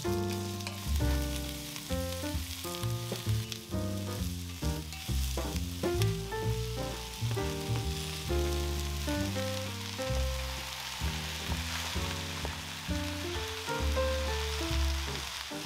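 Vegetables sizzling as they are stir-fried in a 30 cm Staub Perfect Pan, an enameled cast-iron wok, under background music with a melody and bass line.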